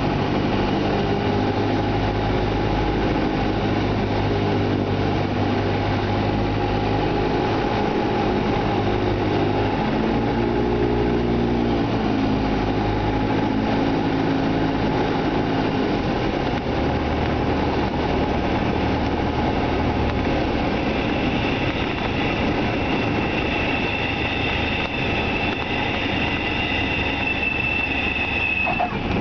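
Cessna 172's piston engine and propeller heard inside the cockpit during the approach and landing, over steady cabin noise. The engine note steps to a new pitch about a third of the way in and drops lower about halfway through as power comes back for the landing. A high steady tone joins over the last several seconds.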